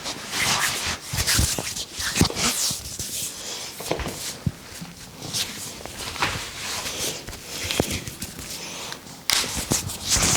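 Hands massaging an oiled head: irregular rubbing strokes with sharp pats and slaps scattered among them.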